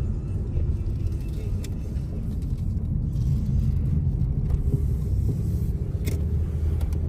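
Steady low road rumble of a car driving, heard from inside the cabin, with a few faint clicks.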